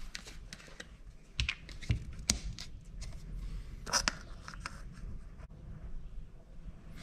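Plastic funnel and oil bottle being handled while bar oil is poured into a chainsaw's oil tank: a few light clicks and knocks, the sharpest about two and four seconds in, over a low hum.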